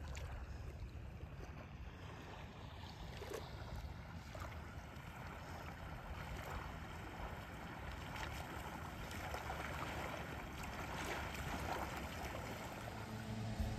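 Small waves lapping gently at a sandy water's edge, under a low rumble of wind on the microphone.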